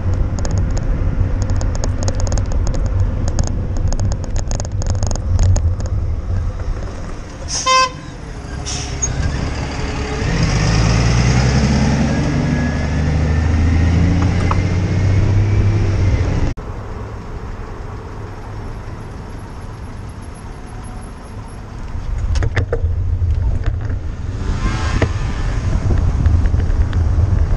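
Road traffic heard from a moving bicycle with wind rumbling on the microphone. A vehicle horn sounds once, briefly, about 8 s in. Then a large vehicle passes close alongside, its engine rising in pitch, before the traffic noise drops away suddenly.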